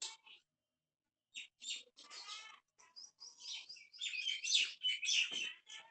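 A string of short, high-pitched chirping and squeaking animal calls. After a pause of about a second they come thick and fast, busiest near the end.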